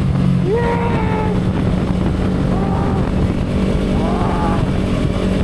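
Motorcycle engine running steadily while riding. Three short pitched sounds that rise and fall come and go over it.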